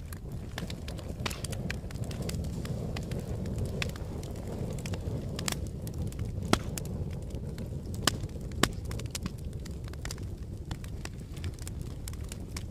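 Wood logs burning in a fireplace: a steady low rush of flames with scattered crackles and a few sharp pops, the loudest about halfway through and again a little later.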